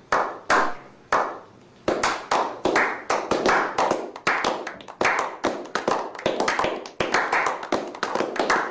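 A small group of people clapping slowly: three lone claps about half a second apart, then from about two seconds in a steady clap of about three a second, each clap trailing a short echo.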